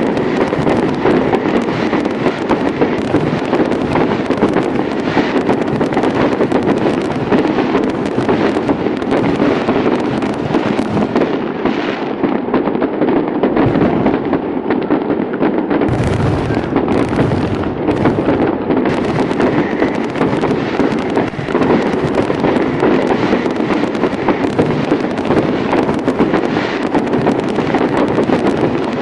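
Fireworks display: a dense, unbroken barrage of bangs and crackles, with heavier low booms about sixteen seconds in.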